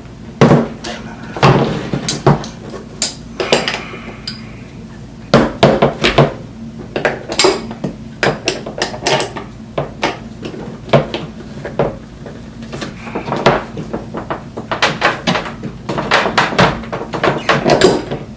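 Hand tools clanking and clicking against roller skate hardware as a toe stop is worked loose, with many irregular sharp metallic knocks and rattles.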